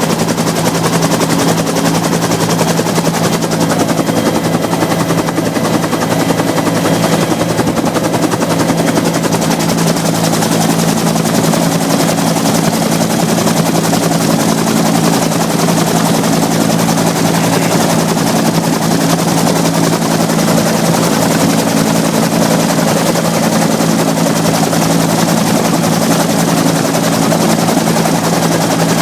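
Bell UH-1 Huey helicopter's turbine and two-bladed main rotor running loudly and steadily.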